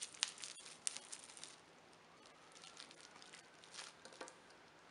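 Plastic bubble wrap crinkling under the hands, a cluster of small crackles and clicks in the first second and a half and again around three to four seconds in, as a tiny screw is picked up and handled.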